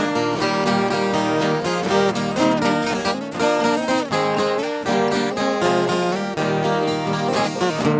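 Instrumental break in a sertanejo modão: a viola caipira picks a quick melody over a strummed acoustic guitar.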